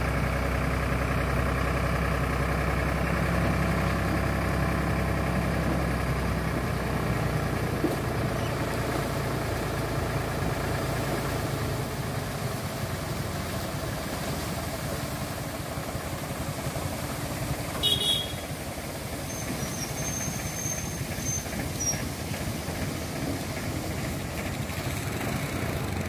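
Diesel engine of heavy road-work machinery running steadily, loudest for the first dozen seconds and then lower and fainter. A brief high squeal comes about three-quarters of the way through.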